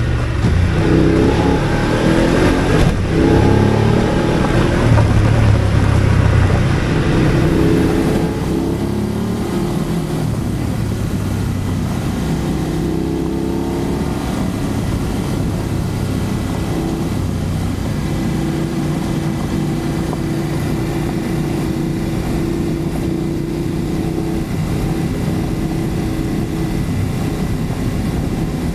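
BMW F 850 GS motorcycle's parallel-twin engine running under way on a gravel road, with tyre noise on the loose stones. The engine pulls harder for the first eight seconds or so, then eases back and runs steadily at lower revs.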